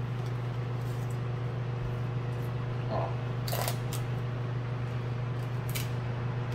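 Steady low machine hum, with a few short scraping strokes of a chef's knife cutting along the back of a whole fish, about three and a half and six seconds in.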